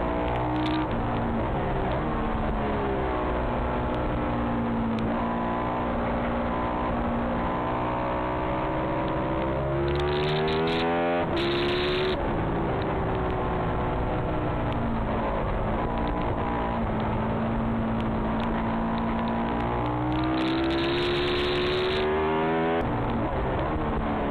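Ducati 996R's 90-degree V-twin racing engine heard on board at race pace, with wind rushing over the bike. The pitch steps down through the gears early on, then climbs hard under acceleration about a third of the way in and again near the end, falling at each shift.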